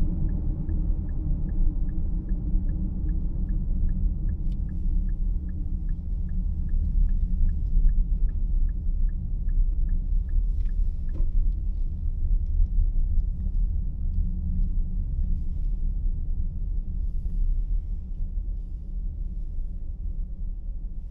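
A steady low rumble, with a faint regular ticking, about two to three a second, that stops about halfway through.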